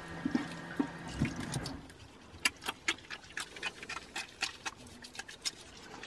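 Water running from a campervan tap into a small steel sink, with a steady hum from the van's small electric water pump; both stop about two seconds in. Scattered light clicks and taps follow.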